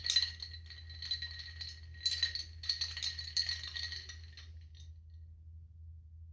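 A rattling, clinking burst of many small clicks over a steady ringing note, lasting about five seconds, over a low steady hum.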